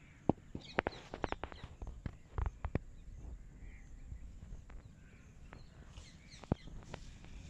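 Birds giving short, sharp chirps in a quick run about a second in and again near the end, over a faint outdoor background.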